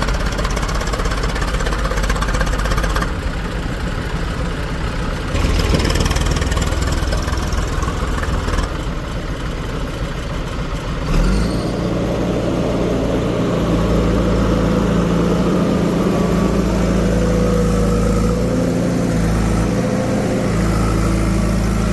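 Diesel engines of heavy farm machinery running, the sound changing abruptly several times in the first eleven seconds; from about eleven seconds in, one engine runs steadily.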